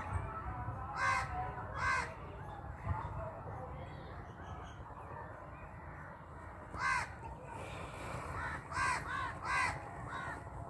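Crows cawing in short calls: two about a second apart, a single one midway, then a quick run of about five near the end.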